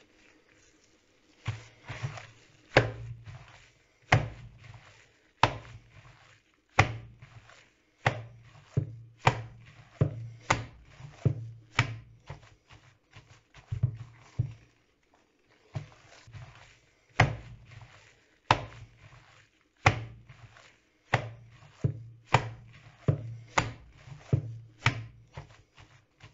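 Minced meat for lyulya kebab being slapped and beaten by gloved hands in a plastic bowl: a steady run of slaps, about one a second, with a short pause about halfway through. The beating packs the mince dense enough to hold on skewers.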